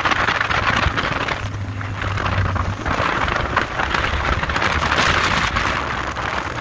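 Motorboat under way at speed: rushing water and spray from the wake with wind buffeting the microphone, swelling and easing, over the low steady hum of the outboard motor.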